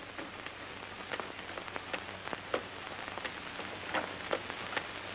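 Steady hiss with irregular sharp crackles and a faint low hum: the surface noise of a worn 1950s film soundtrack.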